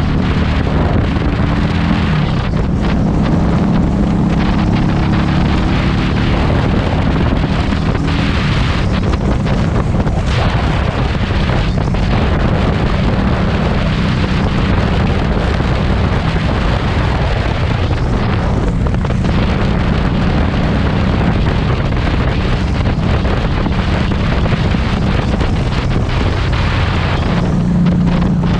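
Harley-Davidson Street 500's liquid-cooled V-twin running through its aftermarket TAB Performance exhaust, rising in revs over the first couple of seconds and then holding a steady cruise. Heavy wind noise on the helmet-mounted action camera's built-in mic covers much of the exhaust note.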